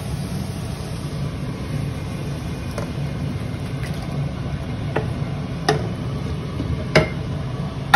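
Marinated mutton liver scraped from a plastic container into an aluminium cooking pot with a wooden spatula: about half a dozen sharp knocks and taps of spatula and container against the pot, the loudest near the end, over a steady low rumble.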